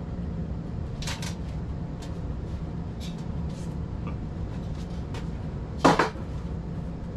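Galvanized sheet-metal duct extenders being handled: scattered light taps and clinks, then one loud sharp clank about six seconds in. A steady low hum runs underneath.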